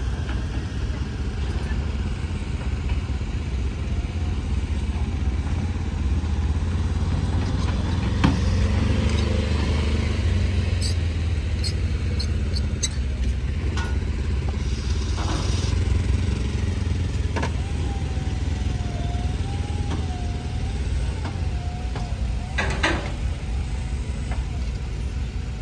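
New Holland T8 Tomcat pro stock pulling tractor's diesel engine idling as the tractor is driven slowly, a steady low drone that swells a little partway through, with a few sharp clicks and knocks.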